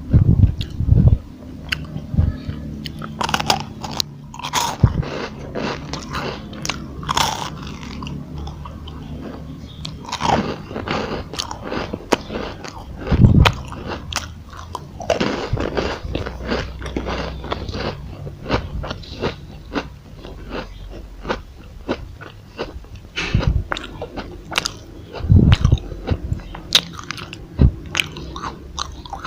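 Close-up biting and chewing of crispy chocolate rolls: brittle crunches and crackles come irregularly through the chewing.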